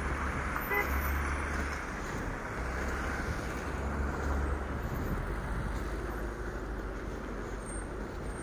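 Road traffic: cars and a semi-trailer truck running on a city street, a steady low rumble of engines and tyres.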